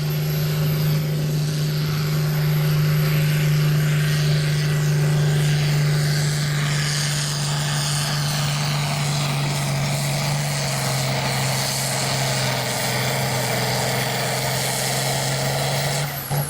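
Farm tractor engine running hard at full power while pulling the weight sled, holding a steady pitch that sags slightly about ten seconds in. The engine cuts back sharply near the end as the pull finishes.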